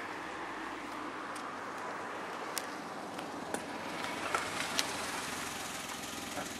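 Steady outdoor background hiss with a few faint, sharp clicks near the middle.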